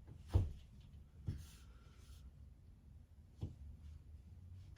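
Three dull knocks, the first the loudest, and a brief scrape about a second and a half in, as a small hook is worked into a hole in the wall.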